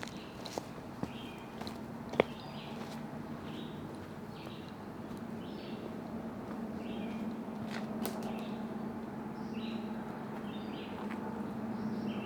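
Woodland ambience: short high chirping calls repeat over and over, with a few sharp snaps in the first couple of seconds, the last of them the loudest, over a low steady hum.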